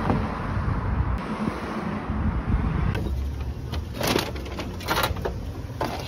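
Street noise with wind on the microphone and a low traffic rumble; about three seconds in it cuts to a quieter background with three or four short clicks and rustles.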